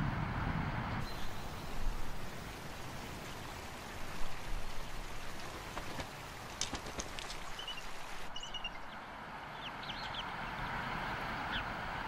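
Steady outdoor hiss with a few light clicks around the middle, and a few faint, short, high bird chirps near the end.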